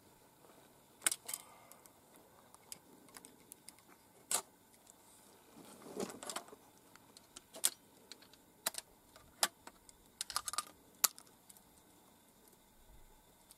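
Scattered light clicks and rattles of 12-gauge shotgun shells being handled and single-loaded into a reverse-cycle pump-action shotgun, with a short rustle about six seconds in. No shot is fired.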